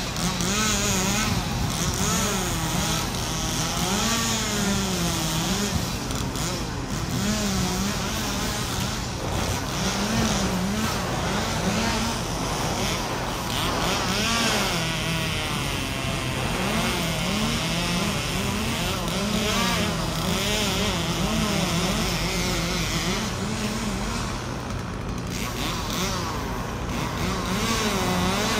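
An engine running steadily, its pitch wavering up and down every second or two over a constant low hum.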